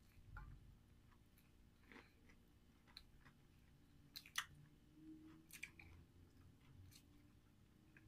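Faint eating sounds: chewing, with scattered sharp clicks of a fork against a plate, the loudest a quick double click about four seconds in.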